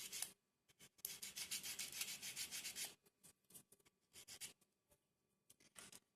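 Sandpaper rubbed by hand on a small wooden kit part in quick back-and-forth strokes: a steady run for about two seconds from a second in, then short bursts. The sanding smooths the part so the marbles will run freely.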